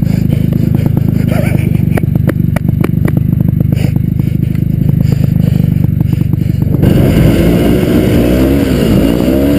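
Snowmobile engine running hard through deep snow, close to the camera mounted on the sled, with rattling and knocks from the machine. About seven seconds in the engine note changes and rises and falls as the throttle is worked.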